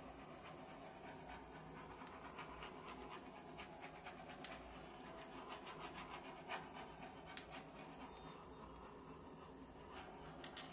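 Handheld torch running with a steady hiss as it is passed over a wet acrylic pour to bring up cells and pop bubbles, shutting off suddenly near the end.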